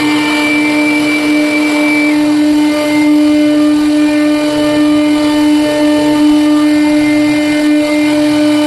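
CNC router spindle running with a steady whine while cutting a jali (lattice) pattern; one higher tone drops out about two seconds in.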